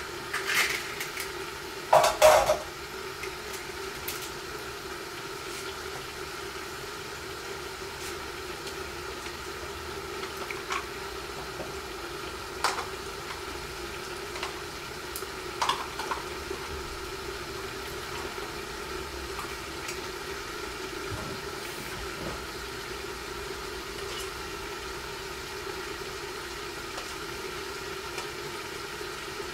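Duck chicken karahi cooking in an iron karahi covered by an upturned pan over a gas flame: a steady hum and hiss of frying under the lid. There are two louder bursts of spattering in the first few seconds, then scattered small pops and crackles.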